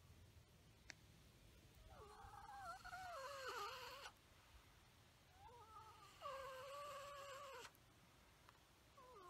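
White domestic turkey calling twice, each a wavering, pitched call of about two seconds.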